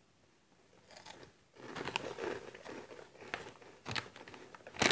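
Crunchy Cheetos corn snack being bitten and chewed, starting about a second and a half in, with a few sharper crunches. The snack bag crinkles loudly right at the end.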